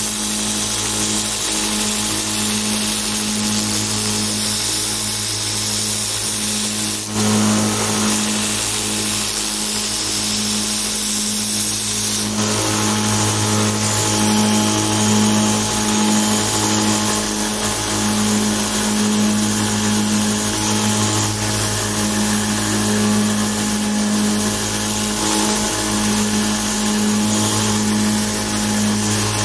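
VFD-driven 2 HP motor of a homemade 2x72 belt grinder running steadily with a hum, while its 80-grit belt grinds an aluminium sheet pressed freehand against the unsupported belt, with no platen behind it. The grinding noise shifts slightly at about seven and twelve seconds in.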